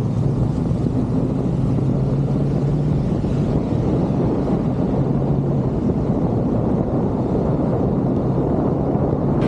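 Motorcycle engine running steadily while riding, with heavy wind rumble on the microphone.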